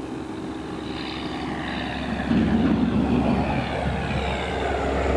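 A passing engine with a propeller-like drone. It grows louder about two seconds in, and its pitch slowly falls as it goes by.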